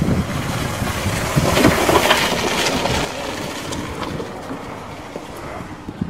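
A golf cart driving past: a rushing noise that swells about a second and a half in and fades after three seconds.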